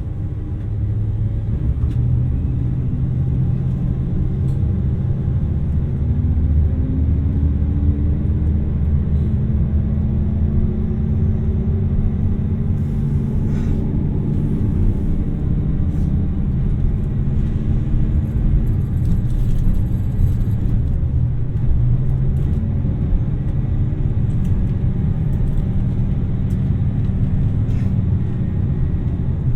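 Inside a JR Shikoku 2700 series diesel limited express train under way: a steady low rumble of diesel engine and running noise, with an engine tone rising in pitch a few seconds in as the train picks up speed.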